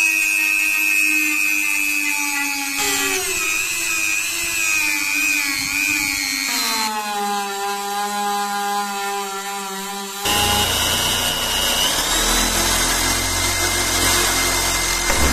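Handheld rotary tool spinning a small abrasive sanding drum against the steel of a knife blade's hooked tip: a high motor whine that wavers and sinks in pitch as it bears on the metal. About ten seconds in it gives way to a drill boring through the steel blade, a steadier whine over a low hum.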